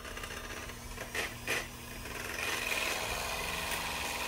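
Electric mixer whipping heavy cream into whipped cream. A couple of short scraping strokes come about a second in, then a steady motor whir with a high whine from about halfway.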